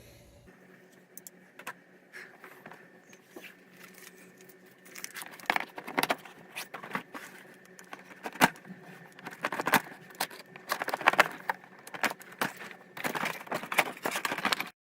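Action figure packaging being opened and handled: scattered rustles and clicks, getting busier about five seconds in, with a dense spell of crinkling near the end that cuts off suddenly.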